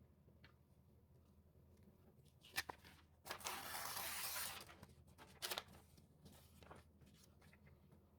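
Paper being torn in one steady tear lasting just over a second, a little after the middle, with light taps and paper clicks before and after it.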